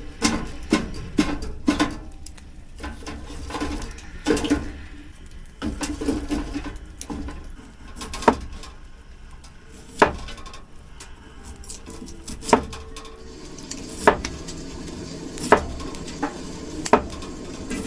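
Knife cutting potatoes into chunks, the blade knocking on a cutting board at irregular intervals, quick at first and then spaced out, with light clinks of kitchenware.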